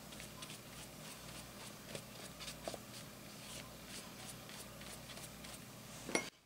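Faint paintbrush strokes on wet watercolor journal paper: soft scratchy brushing about twice a second, with a sharper click near the end.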